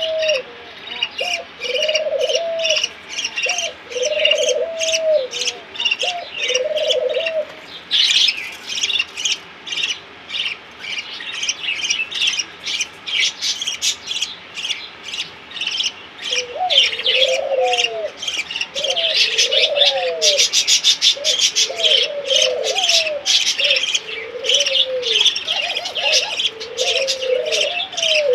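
Baby birds chirping rapidly and continuously in high-pitched notes, typical of nestlings begging to be fed. A lower, repeated cooing call runs through the first few seconds, stops, and comes back more tangled from a little past halfway.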